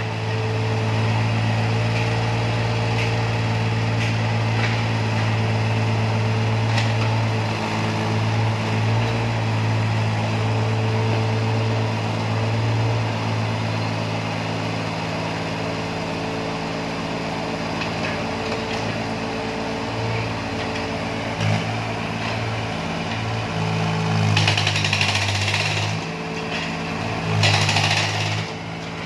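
Walking excavator's diesel engine running steadily while its hydraulic breaker hammers at a concrete road surface, with two louder bursts of clatter near the end.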